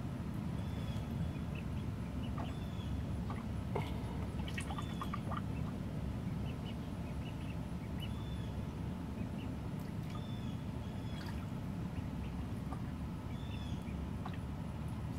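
Welsh Harlequin ducklings peeping: short high peeps, one every second or two, over a steady low rumble, with a few light clicks about four to five seconds in.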